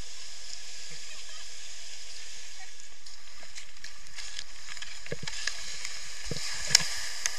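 Steady rush of whitewater pouring over and churning below a river weir. A few faint knocks come after the middle, and one sharp knock near the end stands out as the loudest moment.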